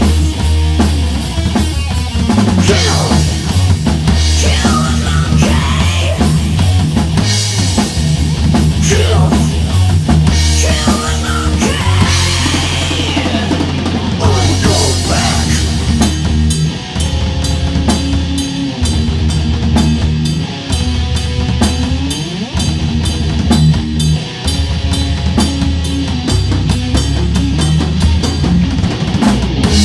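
Studio-recorded hard rock song, with a prominent drum kit driving the beat under a dense band mix and sweeping pitch glides. About halfway through, the mix turns duller while the drums keep hammering.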